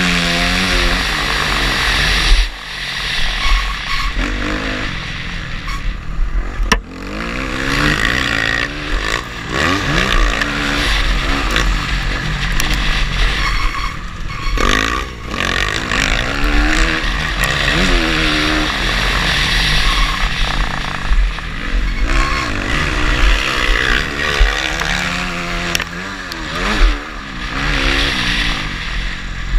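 Motocross dirt bike engine heard from on the bike, revving hard and falling back over and over as the rider works the throttle and shifts gears, with a steady rush of wind noise over the microphone.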